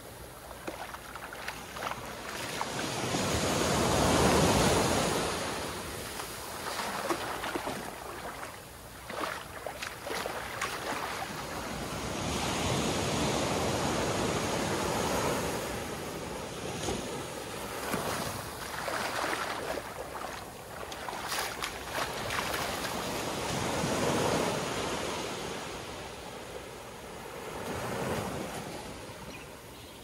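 Small shore-break waves washing up a sandy beach and draining back, the foamy surf swelling and ebbing every few seconds, loudest about four seconds in.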